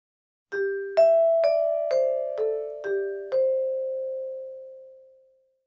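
Vibraphone playing a short phrase: seven mallet strokes about half a second apart, each note ringing on under the next, the last one sustaining and dying away over about two seconds.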